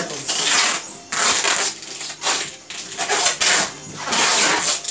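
Packing noises: about five rasping, scraping strokes, each up to a second long, from styrofoam boxes and packing materials being handled.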